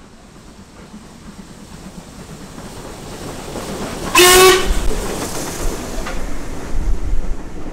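Double-headed steam train approaching, its sound growing steadily louder. About four seconds in, one short blast, about half a second long, on a steam locomotive's whistle, then the train draws close with heavy low running noise.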